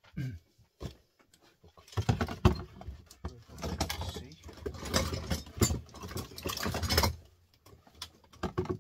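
A couple of single knocks, then about five seconds of dense clatter and scraping as a plastic tub is lifted and shifted over a heap of small scrap metal transformers, which knock and rattle against each other.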